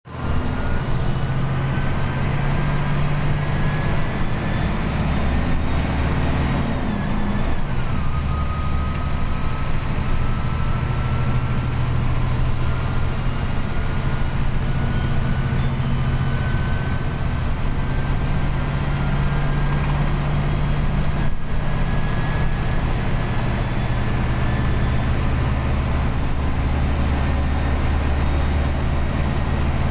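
Daewoo BF106 bus's DE08TIS turbocharged straight-six diesel running under way, heard from inside the cab near the front, with a steady engine drone and road noise. A thin whine climbs steadily, drops sharply about seven seconds in, then climbs slowly again.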